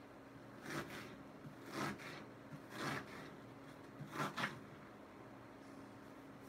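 Kitchen knife slicing through an onion on a cutting board: five short crisp cuts about a second apart, the last two close together.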